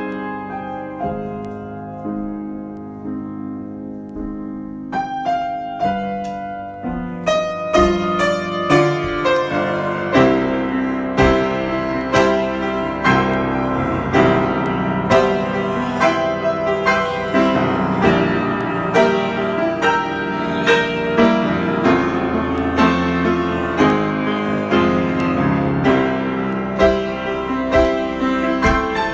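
Solo piano improvisation: soft, held low chords at first, then busier and louder playing with many struck notes from about a quarter of the way in.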